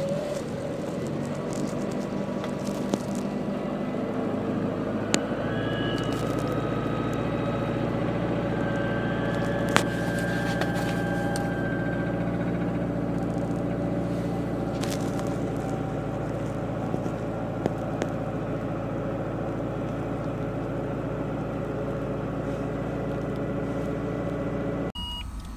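Mitsubishi Lancer IX's 1.6-litre 4G18 inline-four on fast idle moments after a cold start in −34 °C frost; its revs rise within the first few seconds, then hold steady. A few sharp clicks are heard over it, and the sound cuts off abruptly just before the end.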